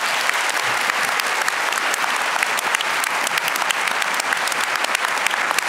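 Audience applauding: a steady, dense sound of many hands clapping in a large hall, a standing ovation for a speaker who has just finished.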